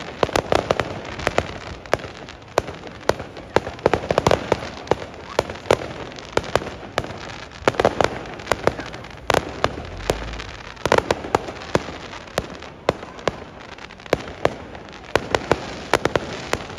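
Fireworks and firecrackers going off in a rapid, irregular string of sharp bangs, several a second, over a constant background of fainter pops.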